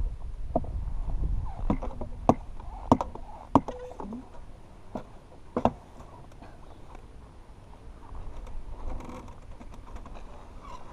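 Knocks, clicks and rustling from handling a stopped KTM dirt bike, with the engine not running: a low rumble at first, then about seven sharp knocks over the first six seconds, followed by quieter scraping.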